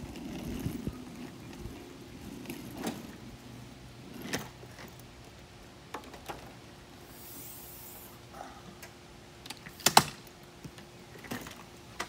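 Rolling suitcase wheels rumbling briefly over concrete, then scattered clicks and knocks as an SUV's rear hatch is opened and the suitcase's telescoping handle is pushed down, the loudest a sharp clack about ten seconds in.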